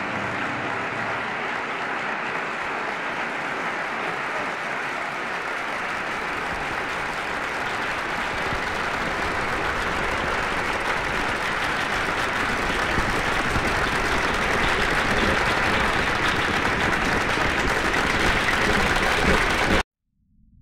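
Audience applauding, swelling louder, then cut off abruptly near the end.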